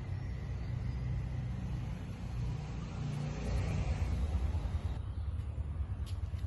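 Low rumbling outdoor ambience with a faint hiss over it, swelling a little about three to four seconds in.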